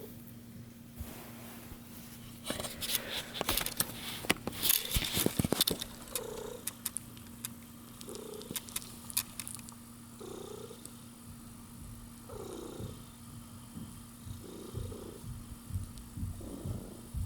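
A one-week-old kitten purring, in soft pulses about every two seconds. A stretch of crackling rustle runs from about two to six seconds in.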